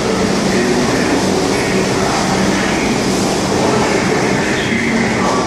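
New York City subway trains in an underground station: a steady loud rumble of steel wheels on rails with a low, even hum underneath.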